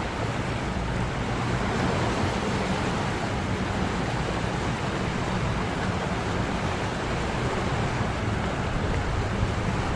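Steady rushing of a fast, high-running river.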